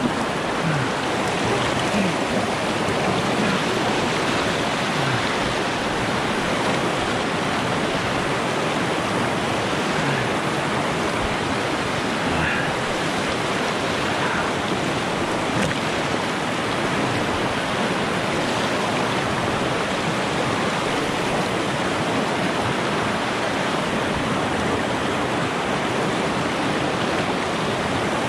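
Rushing river water through class 1–2 rapids: a steady, even rush with no breaks.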